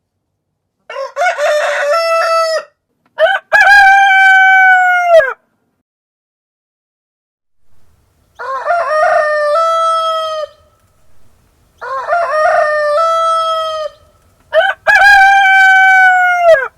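Rooster crowing, five separate crows of about two seconds each, each ending in a long held note that falls away. The loudest crows come about three seconds in and near the end.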